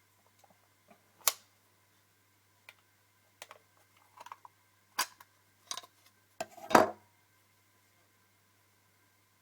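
A series of sharp clicks and knocks at uneven intervals, about seven in all, the loudest and longest one near the end, over a faint steady electrical hum. These are handling noises from the Walther CP88 CO2 pellet pistol.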